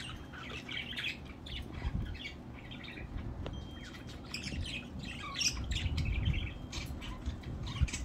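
Budgerigars chattering: a continuous stream of short chirps, squawks and clicks.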